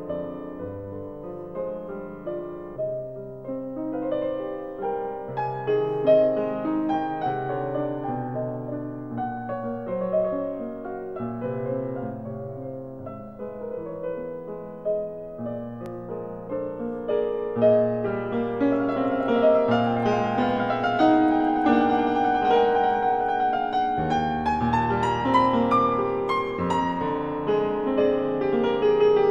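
Piano music, a flowing line of notes, growing louder and fuller a little past halfway through.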